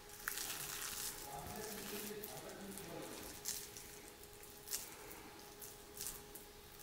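Faint squishing of oiled hands pressing and shaping raw ground beef kebab mixture around a metal chopstick, with a few soft clicks later on.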